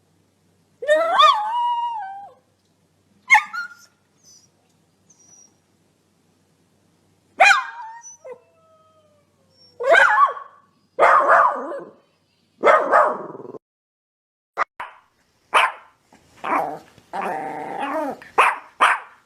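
Dog barking in separate short barks and yelps, a few sliding down in pitch, with a faint whine in between; over the last few seconds the barks come quickly one after another.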